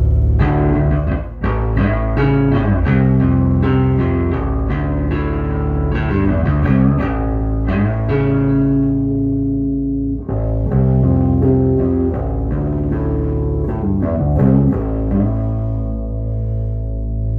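1976 Rickenbacker 3000 short-scale electric bass being played, a run of plucked notes and held notes with a growly tone.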